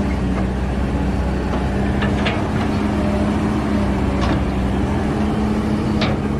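Kobelco excavator's diesel engine running steadily with a low hum while loading soil into a dump truck, with brief knocks about two, four and six seconds in.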